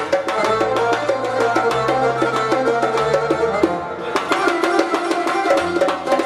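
Uzbek folk trio playing: a doira frame drum beats a fast, steady rhythm over a plucked long-necked lute melody and an Ensoniq keyboard's held bass notes and chords. The drumming breaks off briefly about four seconds in.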